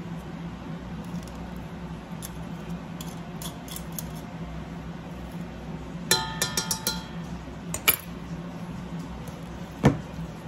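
Metal potato masher tapping and clinking against a metal mixing bowl while mashing bananas. There are scattered light taps, then a quick run of ringing metal clinks about six seconds in, and a solid knock near the end.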